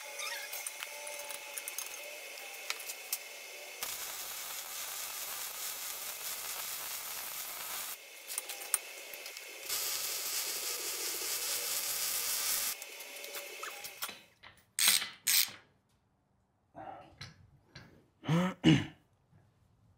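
MIG welding with an ARCCAPTAIN MIG205 Pro: a steady crackling hiss from the arc that shifts in level a few times, is loudest just before it stops, and cuts off about thirteen seconds in. A few short, separate sounds follow near the end.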